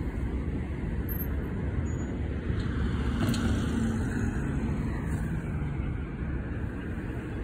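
City street traffic: a car and a box truck driving past, heard as a steady low rumble of engines and tyres that swells slightly partway through.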